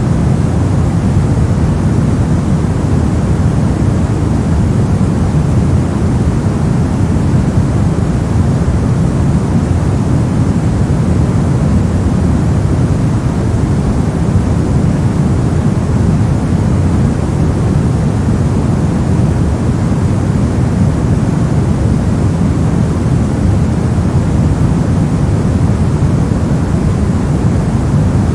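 Continuous generated white noise for sleep, a steady, even rush that never changes. It is deep in tone: heaviest in the low range and thinning out toward the top.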